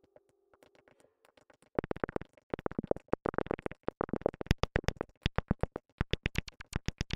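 Electronic synthesizer music made of rapid, evenly repeating clicky pulses, faint at first and much louder from about two seconds in.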